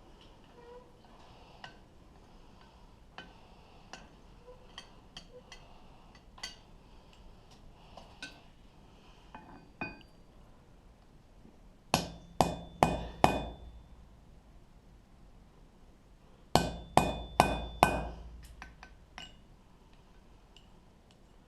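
Hammer blows on a punch stamping pip marks into a small steel die on an anvil. Light taps and clinks through the first ten seconds, then two quick sets of four loud ringing strikes, about twelve and seventeen seconds in.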